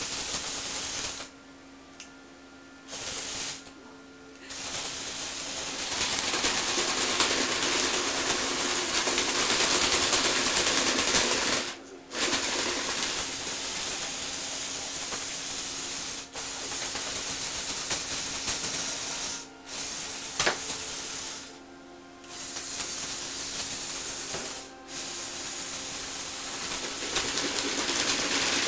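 Electric motors and gearboxes of a tracked Lego Technic rover running as it drives, a steady mechanical whirr with a constant hum under it. The drive stops and starts again several times, with two longer pauses in the first few seconds.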